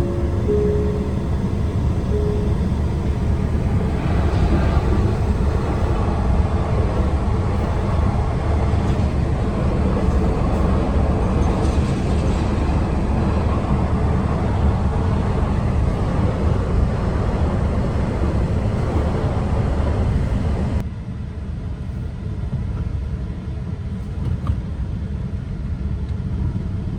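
Steady low rumble and road-like noise of a vehicle in motion, dropping in level and becoming duller about 21 seconds in.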